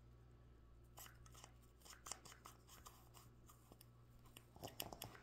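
Near silence, with faint scattered clicks and rubbing from a plastic toothpaste tube being squeezed against a toothbrush's bristles, a few slightly louder ones near the end.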